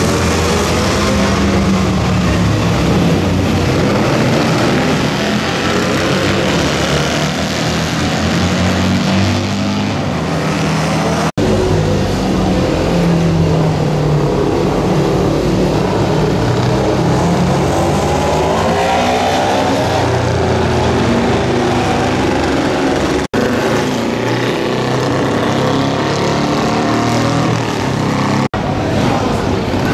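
Classic motorcycles running on a race circuit, their engines revving and passing by, the engine note rising and falling as bikes go past. The sound breaks off for an instant three times.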